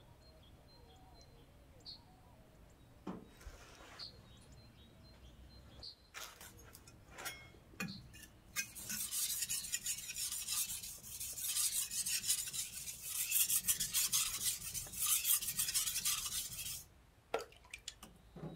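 Stone on stone: a dark stone rubbed back and forth over the face of a wet green sharpening whetstone, making a dense gritty scraping for about eight seconds from about halfway in, then stopping suddenly. A few separate knocks of stone and tools being handled come before it.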